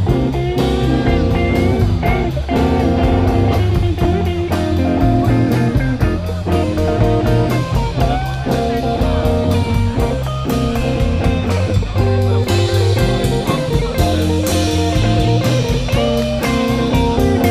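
Blues-rock music: guitar with bending notes over a drum kit keeping a steady beat.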